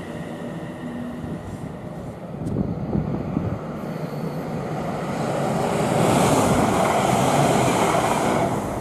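Siemens Class 350 Desiro electric multiple unit approaching and passing at speed: a rush of wheel and air noise that builds from about halfway through, is loudest as the train goes by, and falls away right at the end.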